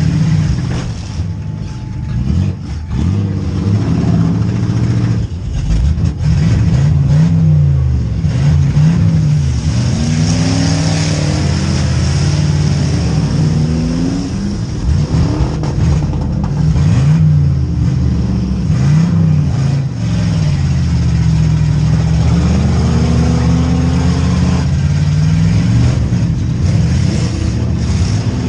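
V8 demolition derby car engines running loud, revving up and down over and over, their pitch rising and falling repeatedly.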